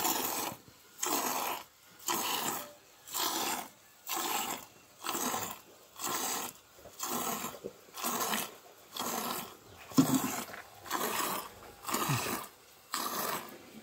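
A buffalo being hand-milked, with the milk squirting into a small steel cup as a hissing spurt about once a second, one spurt for each squeeze of the teat. A sharper knock comes about two-thirds of the way through.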